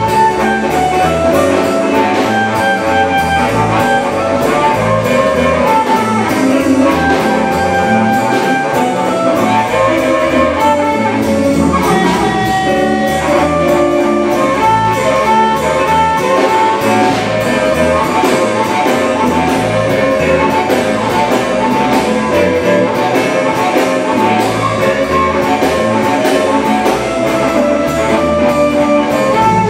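Live blues band playing an instrumental: amplified harmonica carrying held melody notes over electric guitar, electric bass and a drum kit.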